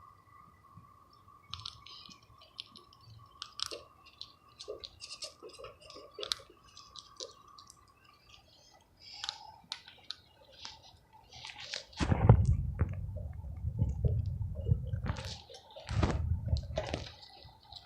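Squirrel chewing and cracking a peanut: a run of small, crisp clicks and crunches. About twelve seconds in, a loud low rumble covers it twice, for a few seconds each time.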